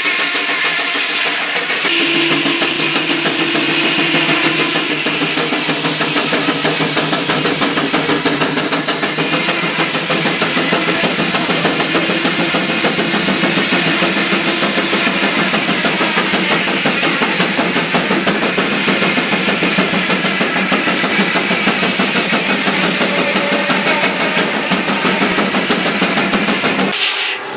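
An engine running steadily at speed with a fast, even exhaust beat, broken off suddenly near the end.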